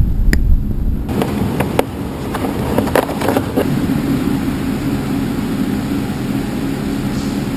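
Wire cutters cutting and stripping electrical leads: a handful of sharp clicks and snips over a steady background hiss.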